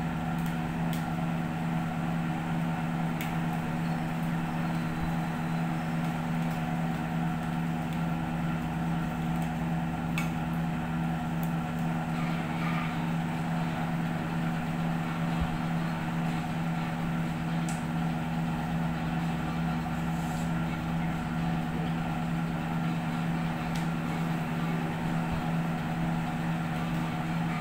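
A steady low machine hum made of several even tones, with a few faint clicks as a ring light is fitted and adjusted on its tripod stand.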